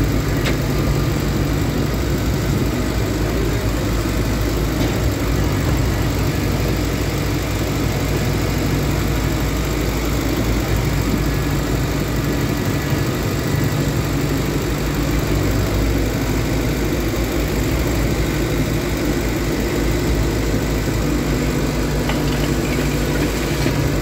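Diesel engine of a TATA 70EX excavator running steadily, heard from inside the operator's cab. Its note shifts a little partway through as the machine works its arm and bucket.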